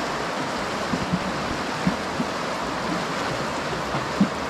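River water rushing steadily, with a few soft low knocks.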